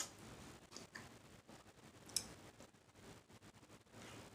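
Faint eating sounds while chewing, close to silence, with a few soft clicks and a sharper click about two seconds in.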